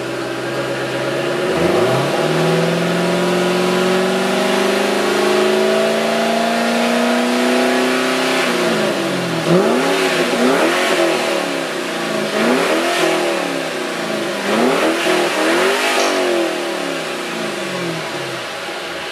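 2007 Ford Mustang GT's V8 through its stock exhaust, revved: the pitch climbs slowly for about six seconds and drops off suddenly, then comes a run of about six quick throttle blips, each rising and falling, before it settles back to idle near the end.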